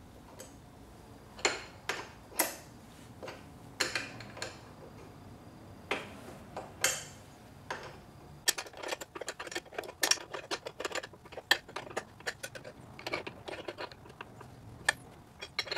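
A 5/8-inch wrench working a bolt on a steel transmission mount bracket: a few separate metal clinks, then a quicker uneven run of clicks through the second half as the bolt is tightened down.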